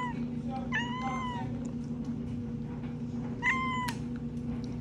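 Recorded cat meows played back: two drawn-out meows about two and a half seconds apart, each rising and then falling in pitch, over a steady low hum.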